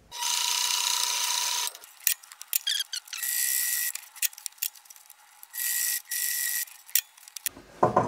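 Pfaff sewing machine stitching through canvas in three short runs, the first about a second and a half long, the later two shorter and higher in pitch. Scattered clicks come between the runs.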